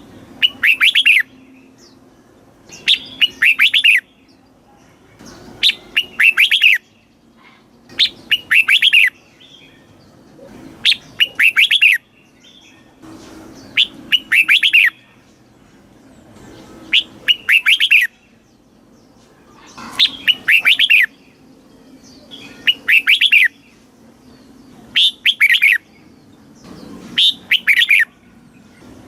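Red-whiskered bulbul singing: a short, loud warbled phrase of quick rising and falling notes, repeated about every two and a half seconds.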